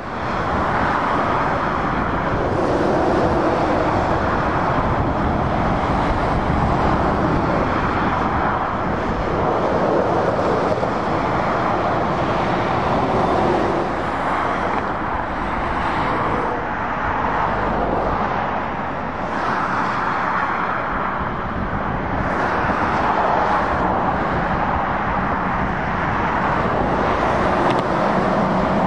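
Motorway traffic passing: lorries and cars with tyre noise and diesel engine drone, swelling and easing as each vehicle goes by.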